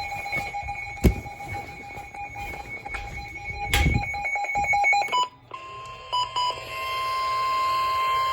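Emergency alert equipment beeping in a fast pulsing pattern that quickens near the end, with two sharp knocks. About five seconds in it gives way to a single steady alert tone near 1 kHz, the warning alarm tone that precedes a flash flood warning broadcast, which swells louder.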